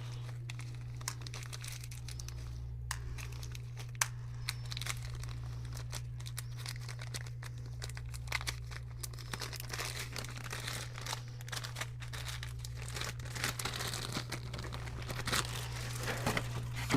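Hands handling laptop parts: scattered small clicks and plastic crinkling and rustling, over a steady low hum.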